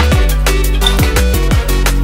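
Background music: an electronic track with a fast, steady drum beat and deep bass notes that slide down in pitch.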